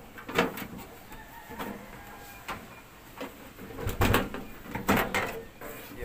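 Sheet-metal outer cover of a microwave oven being slid off its chassis and lifted away: a series of scraping knocks and metal clanks, the loudest two about four and five seconds in.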